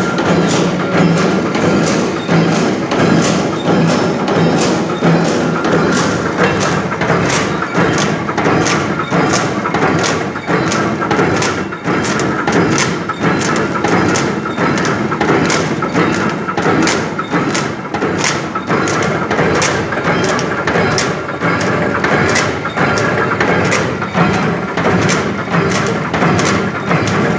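Expanded metal (barfi jali) mesh machine running, its press striking in a steady rhythm of about three strokes a second over a constant hum as it slits and stretches sheet metal into diamond mesh.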